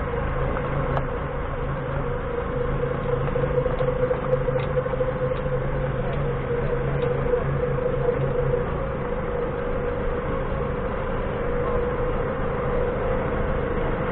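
Doosan 4.5-ton forklift's engine running under load with a steady whine over it, as it carries a roughly 1.2-ton mini excavator on its forks. A lower hum eases about nine seconds in.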